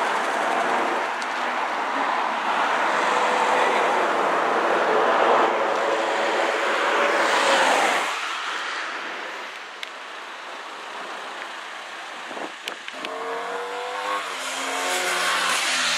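Road traffic passing close by: tyre and engine noise of passing vehicles, loudest in the first half and dying away about halfway through. Near the end a car engine accelerates, its pitch rising.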